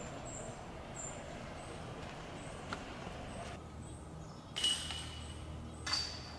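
Two sudden metallic impacts about a second apart in the second half, each leaving a brief ringing tone. Earlier there are soft, high chirps repeating about twice a second.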